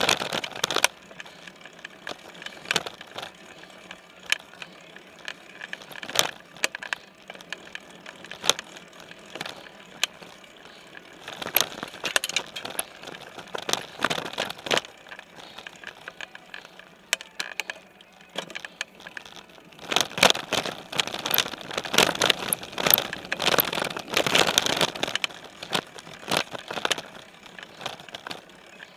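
Specialized Stumpjumper mountain bike rolling over dirt singletrack and leaf litter, heard through a camera mounted on its frame: steady tyre noise with frequent rattles and knocks from bumps, busiest about twelve seconds in and again from about twenty seconds.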